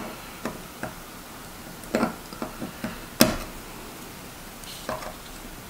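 Scattered small clicks and taps of metal tweezers prying at the plastic tabs under a PECO N scale turnout, the loudest a little over three seconds in.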